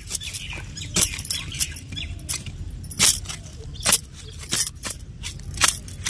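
A small hand digging tool chopping and scraping into dry, crumbly soil around a taro plant to loosen the corms. The strikes are sharp and short, about nine of them at an irregular pace of roughly one every half second to a second.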